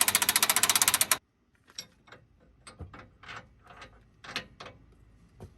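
A ratchet wrench clicking rapidly for about a second as a nut is run down, then scattered light clicks and taps of metal tools and parts.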